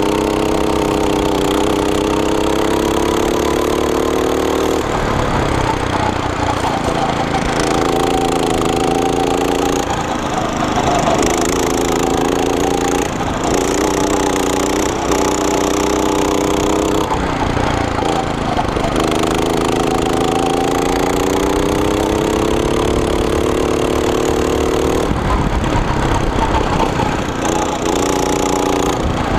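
Go-kart's small single-cylinder engine under throttle, its pitch climbing steadily along each straight and dropping away briefly when the throttle lifts for a corner, about five times over.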